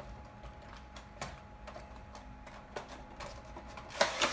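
A Funko Pop cardboard window box being handled and opened on a table: light taps, clicks and scrapes of cardboard, then a louder crackle about four seconds in as the box flap is pulled open.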